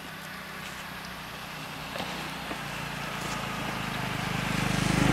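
A motor vehicle's engine running with a low hum, growing steadily louder toward the end.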